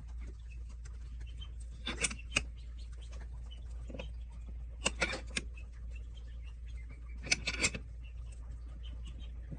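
Three short clusters of clicks and knocks, about two and a half seconds apart, over a steady low hum.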